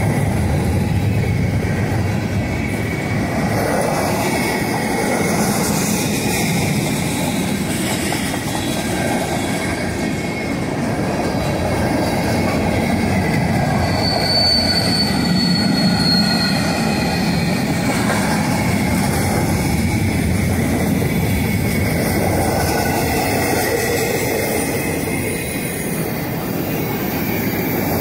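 Freight cars of a passing mixed manifest train (covered hoppers and tank cars) rolling by close up: a steady rumble and rattle of wheels on the rails, with a brief high wheel squeal about halfway through.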